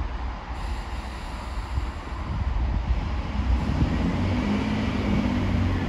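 Diesel engines of a GWR Networker Turbo diesel multiple unit running with a low rumble, their note growing louder and deeper from about three seconds in as the unit works up.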